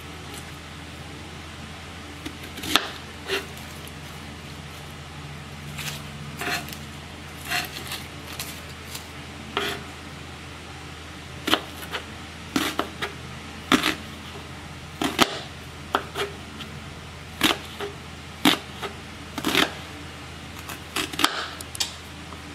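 Kitchen knife cutting onion and garlic on a cutting board: irregular sharp knocks of the blade on the board, sparse at first and coming faster in the second half, over a steady low hum.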